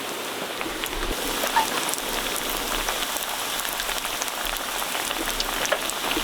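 Hot oil sizzling and crackling as battered sweet potato slices deep-fry for tempura. The crackling gets denser about a second in.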